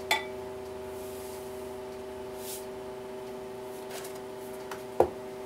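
A sea salt canister and measuring utensils being handled: a sharp click just after the start and another knock about five seconds in, with a faint brief hiss in between. A steady hum made of several tones runs underneath.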